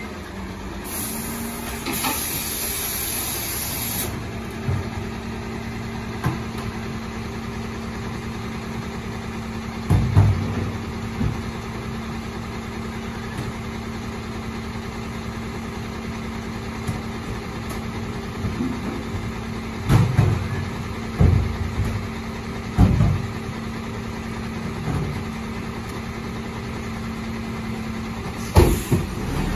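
Hino 500 garbage truck's diesel engine running steadily at low revs, with a hiss of air about a second in and several heavy clunks later on.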